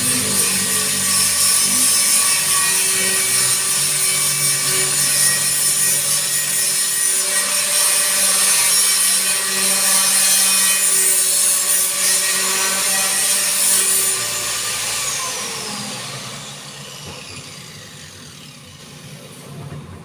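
Electric sanding grinder running steadily as it strips paint from a dented metal body panel. About fourteen seconds in it is switched off and winds down, its whine falling in pitch and fading over a few seconds.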